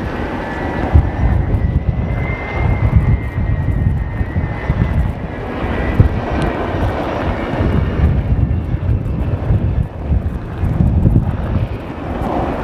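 Avro Vulcan XH558's four Rolls-Royce Olympus turbojets rumbling as the delta-wing bomber flies past. A thin, high whine rides over the rumble in the first half and fades out around the middle.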